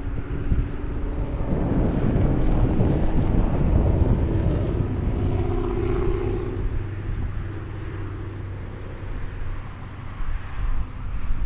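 Wind rumbling on the microphone, with a faint engine-like hum that comes and goes, heard in the first second or so and again around six seconds in.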